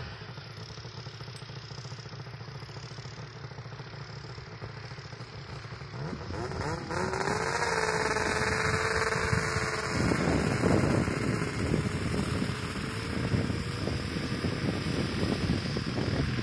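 Snowmobile engine running steadily, then revving up about six seconds in with a rising whine and pulling away louder.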